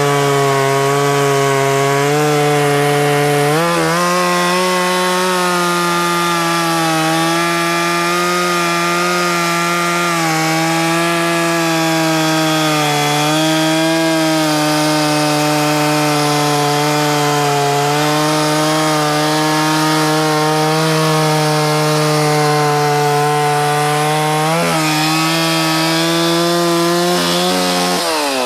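Stihl 044 two-stroke chainsaw with a carbide-tipped chain, held at full throttle while it cuts through a roughly 16-inch maple log. Its pitch steps up about four seconds in and wavers with the load through the cut. It dips briefly near the end, then falls away as the throttle is let off at the very end.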